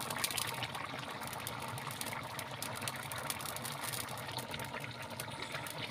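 Vegetable curry boiling in a kadhai over a wood fire: a steady bubbling hiss with many small sharp pops.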